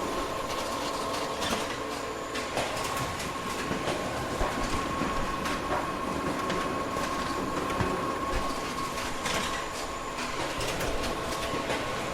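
Photocopier running a booklet-making job: a steady mechanical whir with a constant whine and irregular clicks and clatter from paper handling.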